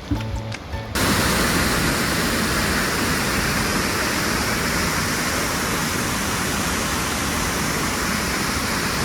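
Waterfall pouring: a loud, steady rush of falling water that cuts in abruptly about a second in, replacing music.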